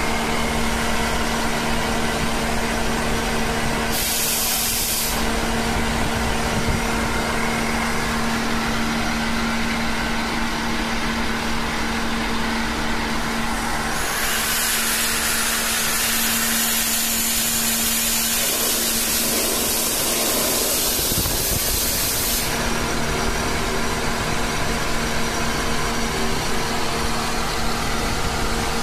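Breathing air compressor running with a steady hum while it fills an EEBD cylinder. Compressed air hisses out loudly for about a second, four seconds in, and again for about eight seconds from the middle: the compressor's water and air drain valves blowing off condensate.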